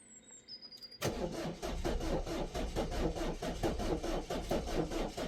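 Peugeot 1.6 HDi diesel engine cranking on the starter motor from about a second in, turning over in an even rhythm without firing: a crank-but-no-start, which the mechanic puts down to an internal fault in the thermostat housing's electronic module (fault codes P2669/P2670).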